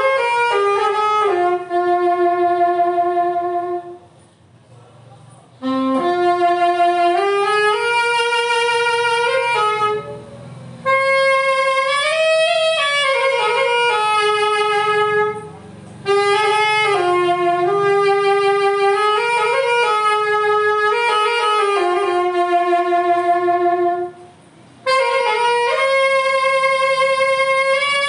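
Solo saxophone playing a slow melody of long held notes with slides between them, stopping briefly for breath four times.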